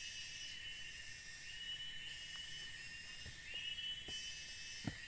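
Forest insects calling steadily, with a high repeating call about every second and a half. Near the end, a few footsteps thud on the dirt path, the last one loudest.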